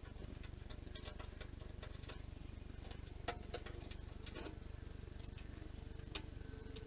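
Scattered light clicks and taps of tools and metal parts being handled while a table saw is taken apart, over a steady low hum; a faint steady tone joins about halfway through.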